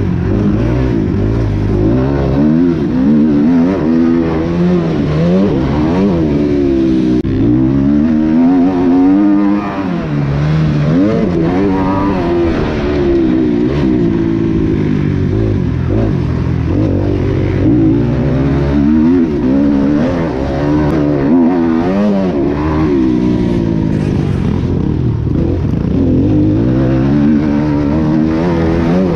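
Kawasaki KX250F four-stroke single-cylinder motocross engine, heard from on the bike, revving hard and dropping back over and over as the rider accelerates, shifts and brakes around the track. The pitch climbs and falls every second or two.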